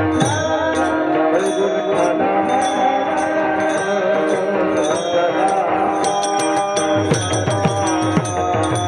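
Devotional kirtan music: small hand cymbals (taal) clash in a steady beat about twice a second over a held drone and a wavering sung melody. A deep drum joins in about seven seconds in.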